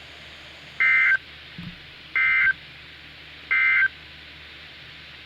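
NOAA Weather Radio's Emergency Alert System end-of-message code: three short, loud bursts of buzzy two-tone SAME data, about 1.4 s apart, marking the end of the warning. A steady hiss and hum from the radio lies under them.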